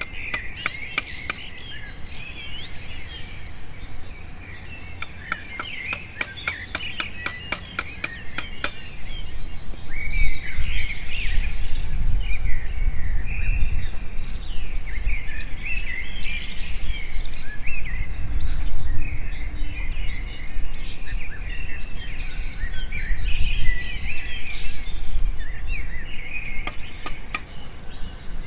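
A hammer tapping steel rods into the end of a bamboo spear shaft: a fast run of sharp taps through the first nine seconds, then a few more later on, with birds chirping throughout. A low rumbling noise comes in about ten seconds in.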